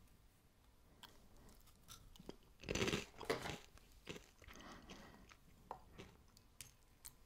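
A person chewing a mouthful of crunchy cereal clusters (Knuspermüsli). The crunching comes in faint, irregular bites, loudest about three seconds in.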